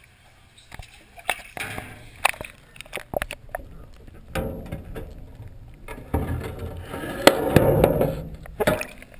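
Underwater noise picked up by a GoPro through its waterproof housing, submerged in a sink of soapy dishwater. There are scattered sharp knocks in the first few seconds, then a heavier, muffled churning and rumbling of the water that is loudest near the end.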